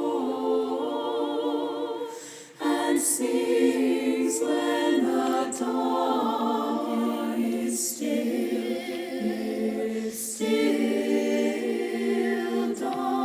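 A choir singing a cappella in held, overlapping chords with slight vibrato, broken by a short breath pause about two and a half seconds in, with soft sibilant consonants now and then.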